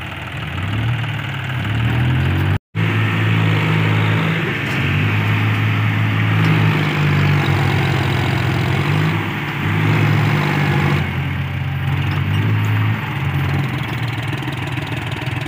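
John Deere tractor's three-cylinder diesel engine working hard, its speed rising and falling again and again as it pulls against the mud. The sound cuts out for a split second about two and a half seconds in.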